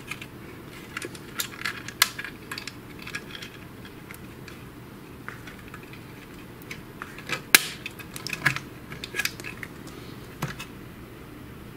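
Scattered sharp clicks and light metallic rattles as a metal bracket is handled and fitted onto a Samsung ML-1210 laser printer's frame. The clicks come thickest in the second half, the sharpest about seven and a half seconds in.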